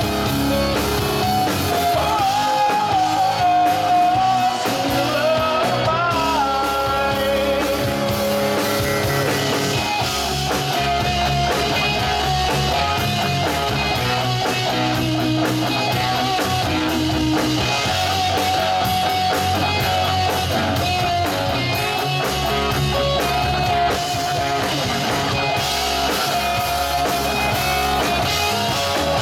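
Live rock band playing through an amplified PA: two electric guitars, a bass guitar and a drum kit, at a steady high volume.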